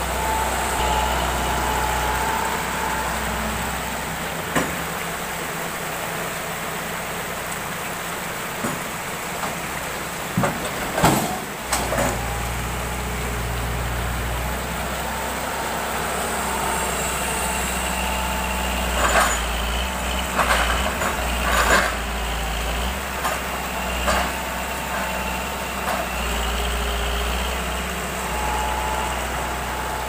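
Hitachi excavator's diesel engine running steadily with a faint whine, broken by sharp clanks and knocks of the grab and logs: a pair about a third of the way in and a cluster about two thirds in.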